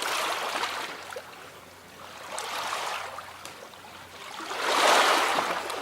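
Small sea waves washing onto the shore in three swells, the last about five seconds in and the loudest, with a light crackle of water draining back between them.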